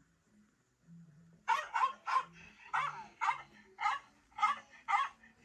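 Small dog barking: a run of about eight sharp, high yips, often in pairs, starting about a second and a half in.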